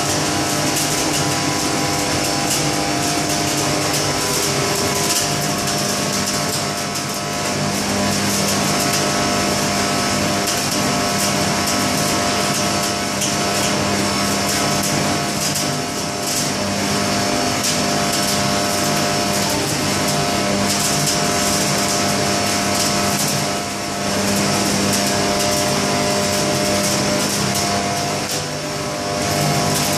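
Manual arc (stick electrode) welding crackling and sizzling in several booths at once, over a steady hum of the fume extraction and welding equipment.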